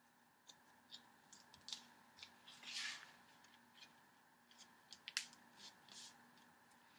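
Faint clicks and light taps from masking tape and paper being handled as a card is taped down flat on a table, with a short rustle about three seconds in.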